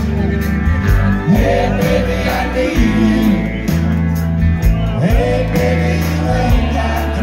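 Live country band playing loud through a PA, with electric guitars, keyboard, bass and drums, heard from within the crowd.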